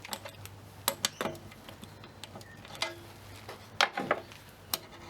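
Sharp, irregular metallic clicks and clinks of hand tools and steel parts being handled on a reel mower's frame and rear roller, about eight separate knocks.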